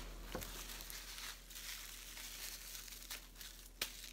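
Faint rustling of hands handling a ball of shortcrust pastry dough on a wooden board and rubbing sticky dough crumbs off the palms, with a few soft taps.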